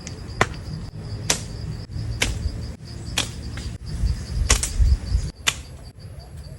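Sharp clicks or snaps, roughly one a second with two close together near the end, over a steady high pulsing insect trill and a low rumble.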